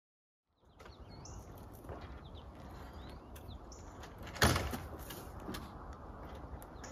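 Outdoor background with birds chirping, a few light knocks, and one loud sharp knock about four and a half seconds in.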